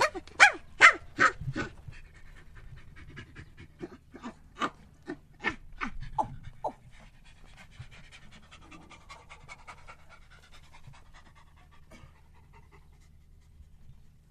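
A monkey's rhythmic panting calls, short breathy grunts about two to three a second. They are loudest in the first two seconds and again from about four to seven seconds, then fade to faint, quicker pulses.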